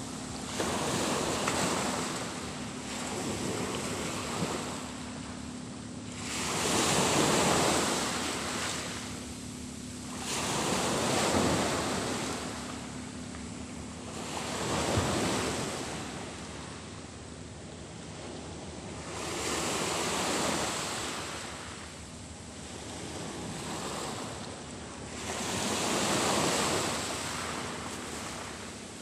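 Small sea waves breaking and washing up on the shore, the noise swelling and fading about every four to five seconds.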